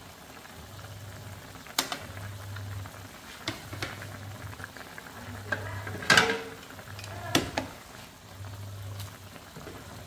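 Food cooking in a pot, with about six sharp clinks and knocks of a utensil against the pot; the loudest, just after six seconds in, rings briefly.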